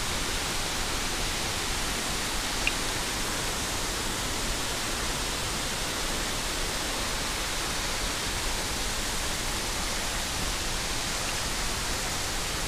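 Steady rush of water from a rocky stream below a waterfall, an even hiss with no change in level. A brief faint click about three seconds in.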